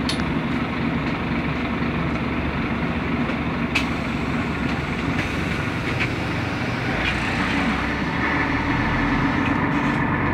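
Cabin noise inside a Scania city bus: the engine running steadily, with a few sharp clicks and rattles from the bodywork. It grows a little louder about eight seconds in.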